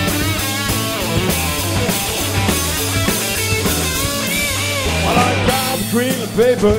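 Live rock band playing: electric guitars over bass and drums. Near the end a lead electric guitar bends notes up and back down.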